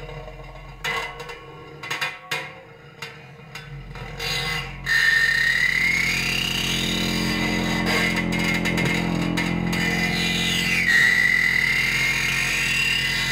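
Improvised experimental music on reimagined and invented acoustic instruments. Scattered clicks and taps for the first few seconds, then from about five seconds a sustained low drone with a high, squealing whistle-like tone that glides upward, drops back about eleven seconds in, and slowly rises again.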